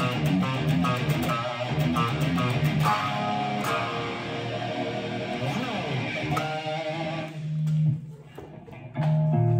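Fender Jaguar electric guitar played through an amplifier: busy picked notes and chords, then a single held note about seven seconds in. A brief drop in level follows before a new chord rings out near the end.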